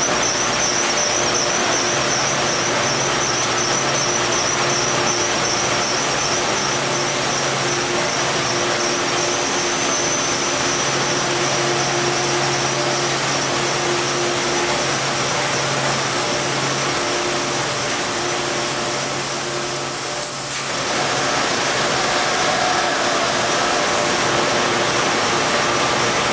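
Loud, steady machinery noise from a plastic-bag factory floor, where blown-film extrusion and bag-making lines are running. It is a dense hiss with a few steady hums and a high whine, and it dips briefly about twenty seconds in.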